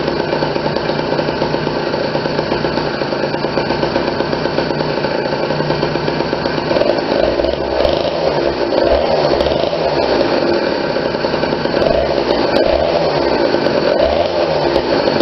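Small two-stroke bicycle engine kit running on the stand during its first break-in run. It holds a steady note at first, then from about halfway in the throttle is blipped several times, the pitch rising and falling with each blip.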